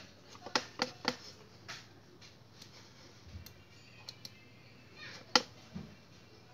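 A few sharp clicks from working a computer's mouse and keyboard: three quick clicks about half a second to a second in, a few faint ticks, and one louder click just past five seconds, over a faint steady hum.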